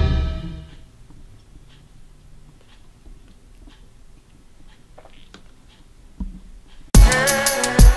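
The film score dies away within the first second, leaving a quiet room with faint, scattered small mouth clicks of a chocolate being chewed. About seven seconds in, loud drum-kit music starts abruptly.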